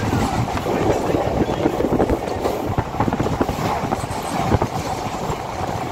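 Passenger train running across a river bridge, heard from inside the coach: a steady rumble and rattle of wheels and carriage, with many irregular clanks.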